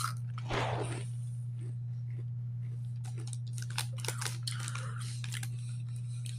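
Someone biting into and chewing a crispy hash brown: a crackly bite about half a second in, then a run of short crunches while chewing. A steady low hum runs underneath.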